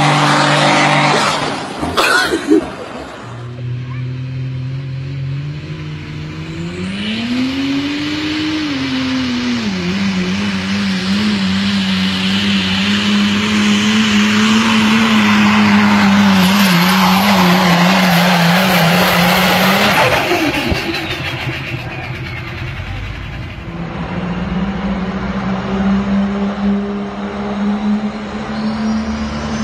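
Diesel engines of pulling trucks and tractors running hard under load. A loud, deep drone climbs in pitch about seven seconds in and then holds steady. The sound shifts abruptly around two seconds and again around twenty seconds as one pull gives way to another.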